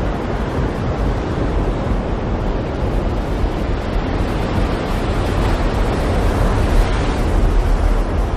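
Storm at sea: a steady roar of wind and breaking waves with a low rumble underneath, swelling slightly near the end.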